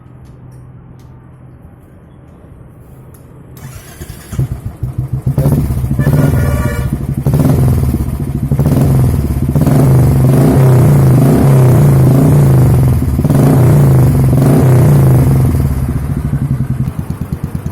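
Royal Enfield motorcycle engine and exhaust. It is faint for the first few seconds, then revved hard and repeatedly from about four seconds in. Near the end it drops back to a steady idle beat.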